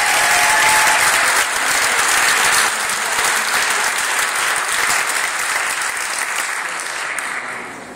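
Audience applauding, a dense wash of clapping that is loudest in the first second or two and tapers off toward the end.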